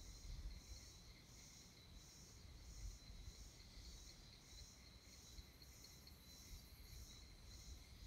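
Faint insect chorus, crickets or similar: high chirps pulsing evenly about one and a half times a second over a steady high-pitched trill, with a low wind rumble on the microphone.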